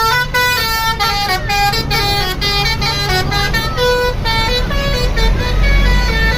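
A tour bus's Basuri multi-tone telolet horn playing a quick tune of many short notes that step up and down, with the bus engine rumbling underneath, the rumble growing louder near the end.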